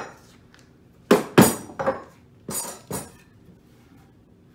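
Hammer knocking on the wooden parts of a dry-fitted mortise-and-tenon joint: five sharp knocks between about one and three seconds in, the first two loudest.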